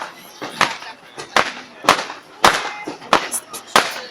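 Fireworks bursting in quick succession: sharp bangs about every half second, each with a short echoing tail.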